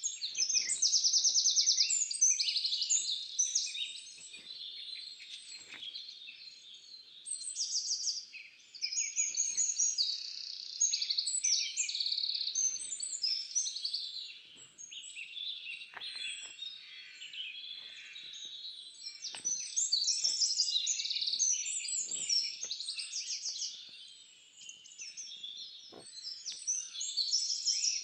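A dense chorus of birds chirping and trilling, many calls overlapping, swelling and fading in waves.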